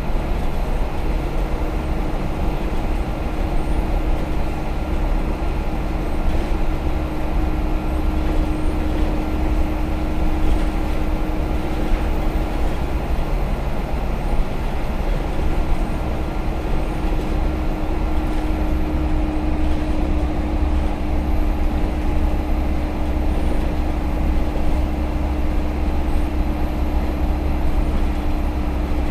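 Engine of a 2006 ADL Dart SLF single-deck bus running, a loud steady drone heard from inside the passenger saloon. A steady whine rides over it, fading for a few seconds around the middle and then returning.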